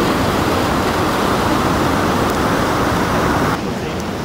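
Loud steady rush of whitewater pouring down a steep river drop. About three and a half seconds in it gives way to a softer, duller rush of flowing river water.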